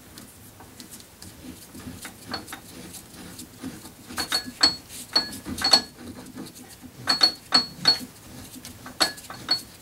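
Sharp metallic clinks and clicks of steel on steel as a threaded steel part is worked by hand into a tight internal thread in a workpiece held in a lathe chuck. The clinks come in small clusters, mostly in the second half, each with a short high ring. The fit is still snug, close to zero clearance.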